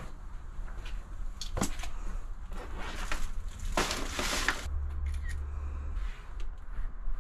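Handling noise of a food delivery being dropped at a front door: a sharp click about one and a half seconds in, then a few seconds of bag rustling as the order is set down on the doorstep.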